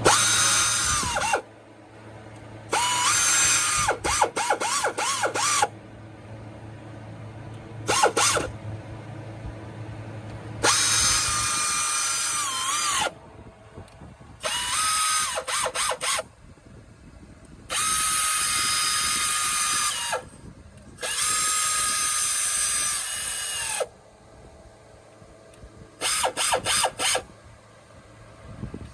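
Electric power drill run in repeated bursts of one to three seconds, its motor whining up to speed and winding down as the trigger is released, with quick stuttering trigger pulses in a few of the bursts.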